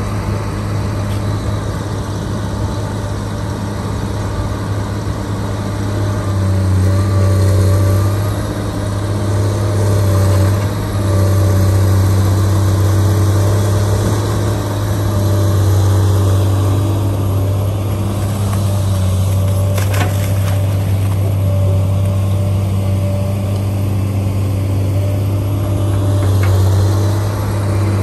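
An engine running steadily: a loud, even low hum with overtones, a little louder from about six seconds in, with a single sharp click about twenty seconds in.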